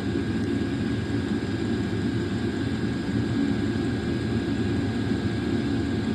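Diesel air heater running: a steady low roar from its burner and fan, with a thin steady high whine over it.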